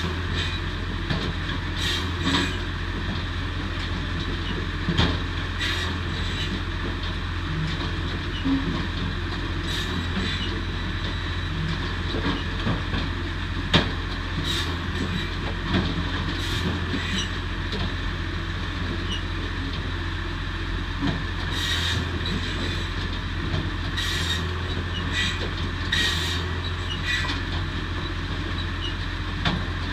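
Posch SmartCut 700 firewood saw-splitter running with a steady low hum, with irregular sharp knocks and clatter of logs being fed, cut and split.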